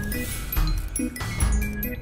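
Background music with a steady beat and short chiming notes.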